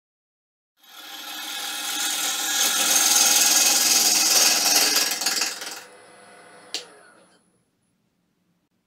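Bowl gouge cutting into a spinning red algarrobo log on a wood lathe: a rough shearing noise that builds over a few seconds and stops suddenly about six seconds in. After that the lathe runs on quietly for a moment, with one sharp click just before seven seconds.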